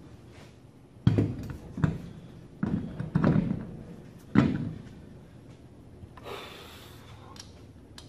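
Heavy knocks and clunks, as of solid metal parts being set down or struck, about five of them with a short ring after each. The loudest is past four seconds in. A brief scraping hiss follows near the end.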